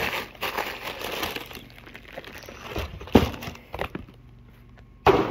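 Clear plastic zip-top bags of old mobile phones rustling and crinkling as they are handled and lifted out of a cardboard box, with a couple of sharp clacks about three seconds in and a sudden louder noise near the end.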